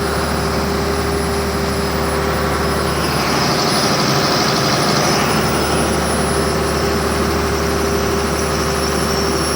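Cummins 6BT inline-six diesel engine of a generator set running steadily, with a constant low hum and a faint high whine above it.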